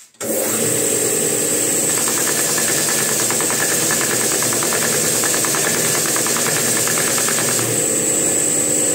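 Electric belt sander switched on and running steadily with a high whine. From about two seconds in, a fast, even ticking runs along with it and fades out near the end.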